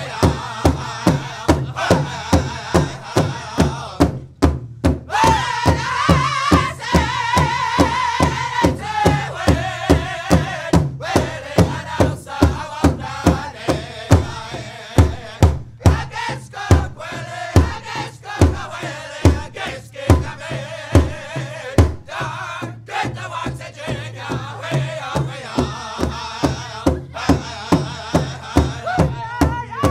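Recorded Native American drum song by a Mi'kmaq drum group: a steady drum beat, about two strokes a second, under a group of voices chanting in wavering vocables.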